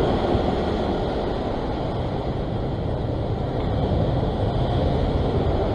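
Steady rushing noise of ocean surf at a sea-rock ledge, with wind buffeting the microphone.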